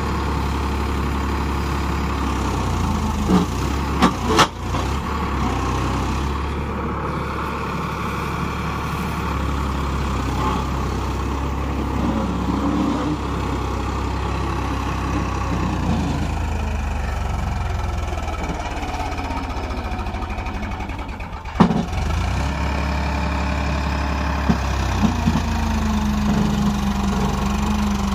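Farmtrac 45 tractor's diesel engine running steadily, with a few sharp knocks about four seconds in and a louder one a little past twenty seconds.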